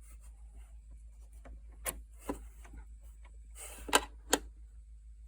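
Handling noise of a small object: a few light clicks and a short rub, with two sharp clicks about four seconds in being the loudest.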